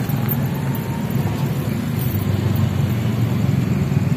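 Motorcycles and other road traffic passing over a railway level crossing: a steady low engine rumble, with a faint rising engine note in the first second or so.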